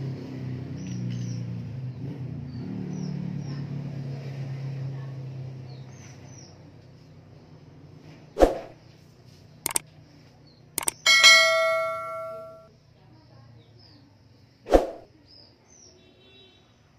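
A low muffled hum for the first few seconds. Then two sharp clicks between two knocks, and a single bright ringing ding that fades out over about a second and a half. Faint bird chirps run underneath.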